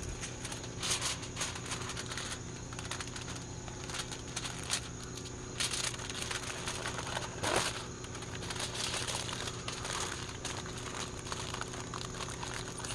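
Aluminium foil being folded and crumpled by hand around a food packet: irregular crinkling and crackling, loudest about a second in and again around six and seven and a half seconds in.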